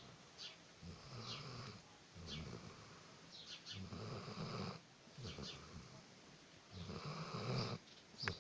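A Central Asian Shepherd dog (Alabai) snoring in its sleep: about five snores in a row, each roughly a second long. Birds chirp faintly in the background.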